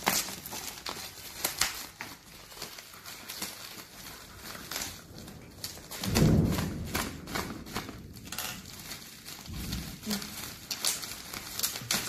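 Plastic courier bag crinkling and crackling as it is handled and turned over, with a dull thump about halfway through as the package is set down on a table.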